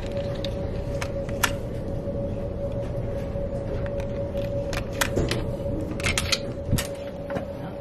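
Plastic keycard clicking in and out of a cabin door's card-slot lock and the metal lever handle being worked, a few sharp clicks about a second in and a cluster of clicks and rattles in the second half, over a steady low hum.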